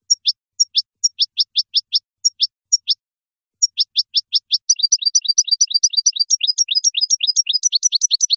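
European goldfinch singing: a series of quick downward-sliding whistled notes, a brief pause about three seconds in, then a faster, denser twittering run.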